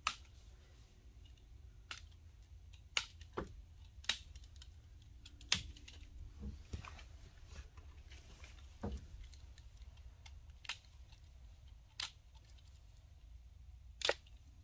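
Sharp snips of plastic cable-tie tails being cut off one by one: about a dozen single snaps spaced one to two seconds apart, over a low steady hum.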